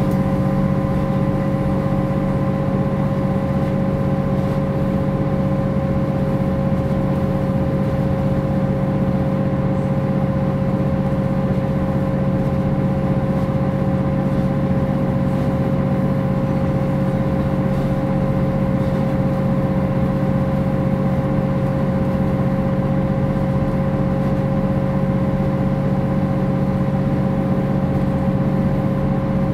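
MAN NG 262 articulated bus's six-cylinder diesel engine running steadily, a low hum with a steady higher whine over it and no change in pitch.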